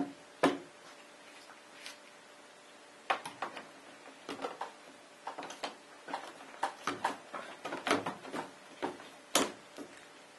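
Irregular metallic clicks and knocks of a hand crimping tool being worked on PEX crimp joints, re-crimping a leaking joint.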